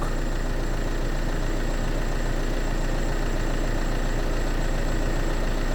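Opel Insignia engine idling steadily. The car now starts and runs with the faulty blind-spot sensor unplugged.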